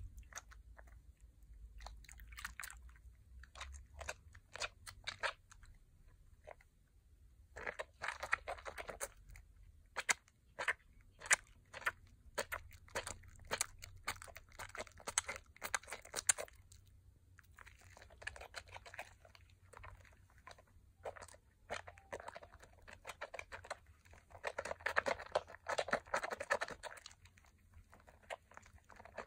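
Hands squeezing and kneading thick lather from a bar of Pears glycerin soap over a bowl of soapy water: wet squelches and the fine crackle of foam. It comes in busy spells, one from about a quarter of the way in to just past halfway and another near the end, with quieter gaps between.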